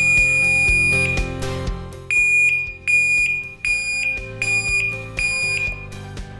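Mucco Universal LED horn, an electronic warning sounder, demonstrating its tones. A steady high-pitched tone stops about a second in. After a short pause it gives a pulsed tone at the same pitch, about five long beeps repeating roughly every three-quarters of a second. Background music plays underneath.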